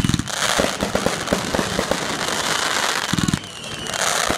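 Fireworks going off: a firework cake fires rapid volleys of shots with crackling pops over a steady hiss. One fast volley comes at the start and another about three seconds in.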